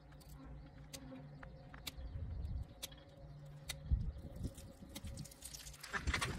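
Skin being pulled by hand off a hanging masked palm civet carcass: soft rustling and dull handling thumps, louder near the end, over a faint steady low hum and scattered sharp clicks.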